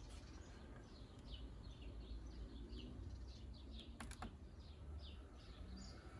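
Two quick clicks of laptop keys about four seconds in, over a bird chirping a steady run of short falling notes, all faint.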